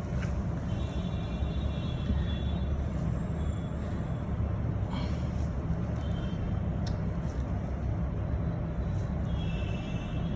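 Steady low mechanical rumble, like engines running, with faint high whining tones about a second in and again near the end, and a single click in the middle.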